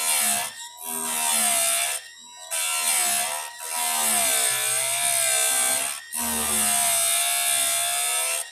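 Electric chainsaw chain sharpener grinding chain teeth in about five passes of one to two seconds, separated by short breaks: a bright, gritty grinding hiss over the motor's whine, whose pitch sags and recovers as the wheel is pressed into the tooth.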